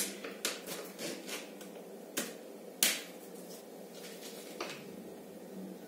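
A series of short sharp clicks and crackles from hands handling a plastic sauce packet, with two louder clicks near the middle and fainter ones after.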